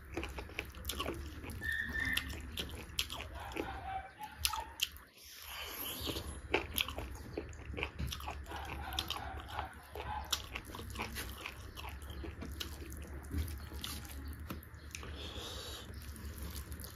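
A person chewing beef curry close to the microphone, with many irregular wet mouth clicks, over a steady low hum.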